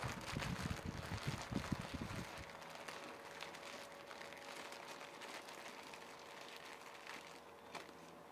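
Faint crinkling of plastic cheese-puff snack bags and chewing as the snack is eaten straight from the bags, with a cluster of low thumps in the first two and a half seconds and a few light crackles later.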